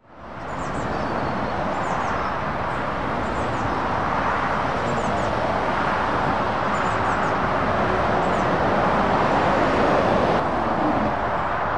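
Motorway traffic passing: a steady rush of lorry tyre and engine noise that fades in at the start and builds as a Volvo FH articulated lorry passes close, then drops a little near the end. Birds chirp faintly above it every second or two.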